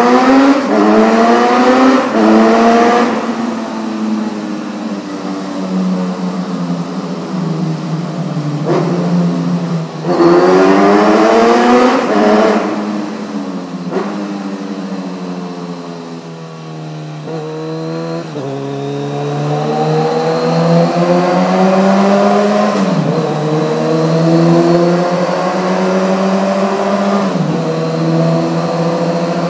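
Kawasaki Z900RS inline-four through an Akrapovič titanium slip-on with stainless header, heard on board under way. The revs climb hard through quick upshifts at the start and again about ten seconds in. They fall away as it slows around the middle, then pull up steadily in a high gear, inside a covered road tunnel.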